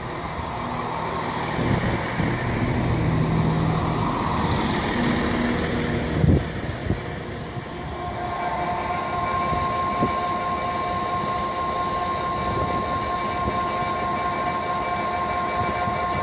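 Diesel trains running at a station platform: the engines of a CrossCountry Class 170 Turbostar diesel multiple unit, with an EWS Class 66 diesel locomotive alongside. A steady rumble carries a few short knocks, and a steady whine sets in about halfway.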